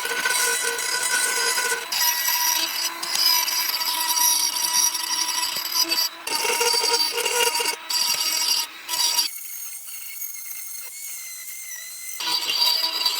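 Power tool working bamboo, a harsh, steady machining noise with a faint whine, changing abruptly several times. It drops to a quieter hiss for about three seconds a little after the middle before coming back.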